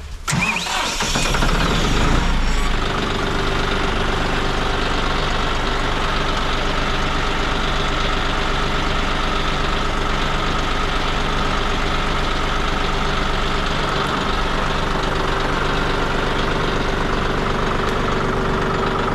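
Tractor engine starting in the first second, picking up speed for a moment, then running steadily.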